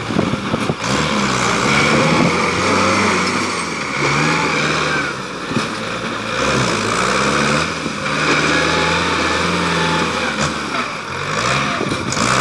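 Belarus 510 tractor's diesel engine working a front loader, its pitch rising and falling again and again as the throttle is opened and eased while digging and lifting.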